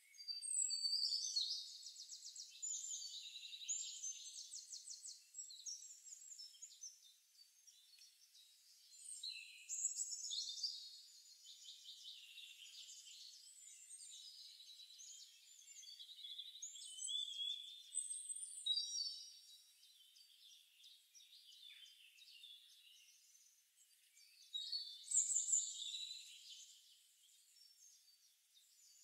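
Forest birdsong ambience: several songbirds singing overlapping high trills and chirps that swell and fade in waves every few seconds.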